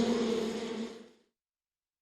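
A flying insect's steady, pitched wing buzz that fades and stops about a second in.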